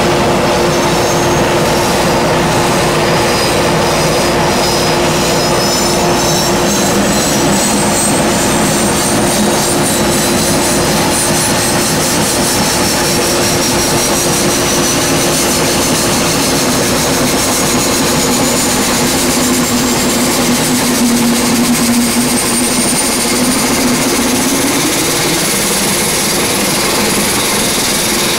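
Aircraft turbine engine running on the ramp: a loud, steady roar with a high whine that climbs slowly in pitch.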